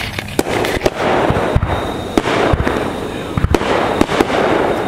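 Consumer fireworks going off: a string of sharp bangs and pops at irregular spacing over a dense crackling hiss that swells about a second in.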